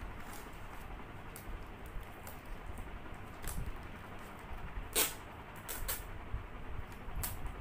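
Fingers tapping and scratching on a cardboard shipping box, picking at its packing tape: scattered light taps and scrapes, with one sharper tap about five seconds in.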